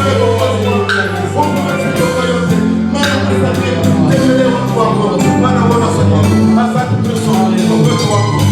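Upbeat gospel music with a steady bass line and regular percussion.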